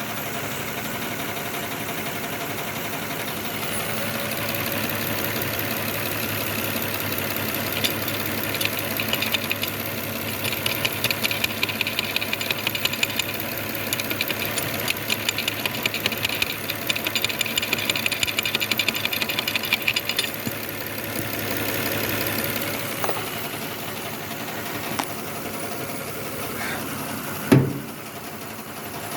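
Lexus ES330's 3.3-litre V6 idling with a misfire, cylinder 5 dead from an injector stuck closed. After about eight seconds a rapid run of tapping on the injector starts, an attempt to free it, and stops around twenty seconds in; a single loud thump comes near the end.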